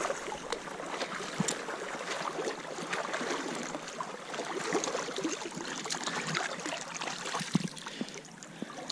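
Shallow creek water trickling and sloshing, with a few light knocks scattered through.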